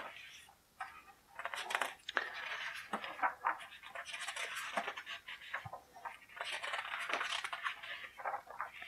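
Pages of a rulebook being turned by hand: three bouts of paper rustling and flapping with short gaps between.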